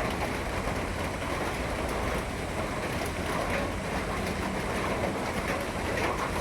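Steady rain falling: an even hiss with faint ticks of drops.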